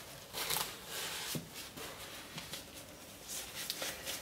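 Paper towel rustling and crumpling in gloved hands, with a few light knocks, as the rim of a paper-lined wooden soap mold is wiped clean.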